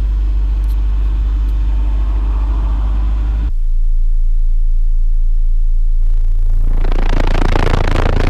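Car-audio subwoofers playing a loud, steady, very deep test tone, which steps up to a slightly higher and louder tone about three and a half seconds in. Near the end, a loud rattling buzz joins the tone.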